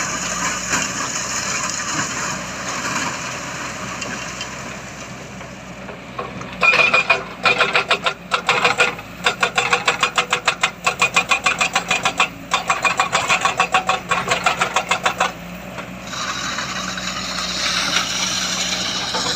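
Heavy diesel machinery engine running, with a stretch of rapid, evenly spaced mechanical pulsing that starts about a third of the way in and stops after some eight seconds, followed by the steady engine sound again.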